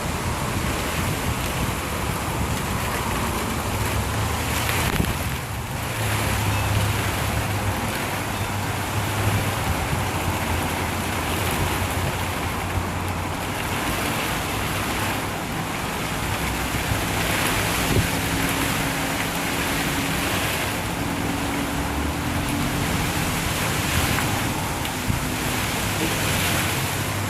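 Heavy rain falling steadily during a thunderstorm, with a low rumble swelling between about four and ten seconds in.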